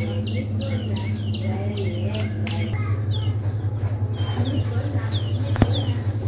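A bird calling in short, repeated downward chirps, quick at first and then more spaced out, over a steady low hum. There is one sharp click about five and a half seconds in.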